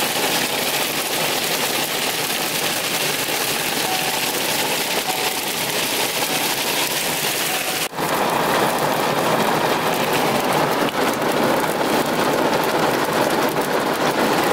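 Hailstorm with rain pelting the truck and the forest floor: a dense, steady patter of many small hits. About eight seconds in it drops out for an instant and comes back louder and fuller.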